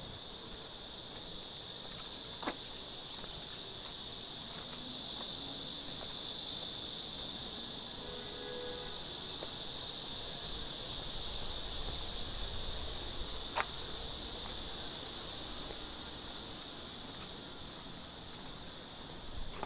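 Cicadas singing in a steady, high-pitched summer chorus. Two short sharp clicks stand out, one about two and a half seconds in and one about two-thirds of the way through.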